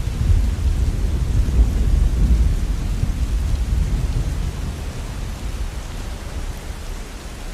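Steady rainfall under a long, low rumble of thunder that slowly fades away.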